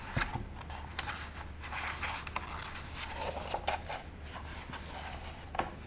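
Pages of a hardback picture book being turned by hand: paper rustling and sliding, with a few light clicks, over a faint low hum.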